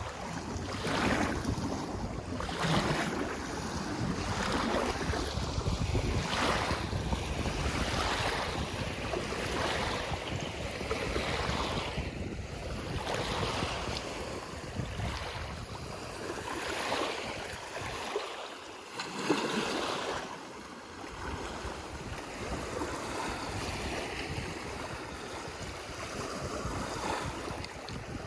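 Small lake waves breaking and washing on the shore in repeated surges about every two seconds, with wind buffeting the microphone as a low rumble.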